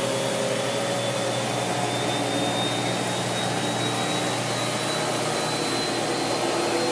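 Maytag Neptune front-load washer's drive motor bringing the drum up to speed in its diagnostic test cycle: a steady whirring with a thin whine that rises slowly in pitch as it revs up. It is running on a newly replaced motor and motor control board.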